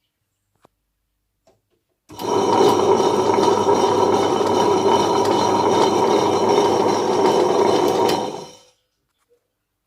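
Wonderchef Maxima wet grinder starting up about two seconds in, its motor and rotating stone drum running steadily for about six seconds, then switched off and running down.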